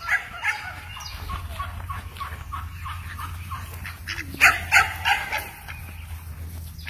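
A flock of domestic mallard ducks quacking, a run of short, falling quacks about two a second, with a few louder calls a little past the middle.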